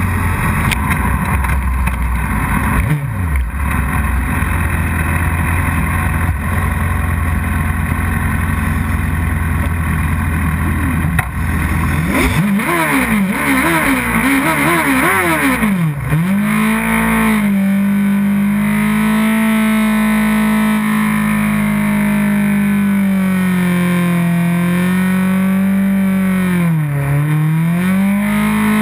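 Sport motorcycle engines riding along a road with heavy wind rush. About twelve seconds in, the engine note rises and falls several times as the bikes slow to a stop. A steady engine note then holds one pitch, with a brief dip near the end.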